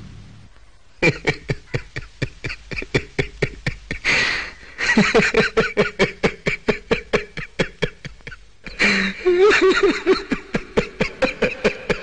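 A person laughing hard in quick repeated bursts, about five a second, with a short break near the end before the laughter resumes.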